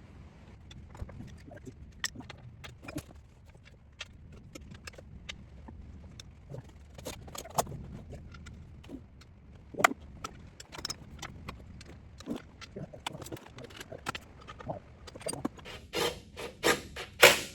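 Scattered metallic clicks and clinks of bolts and hand tools being worked while an oil pan is bolted up, with a quicker run of louder knocks near the end.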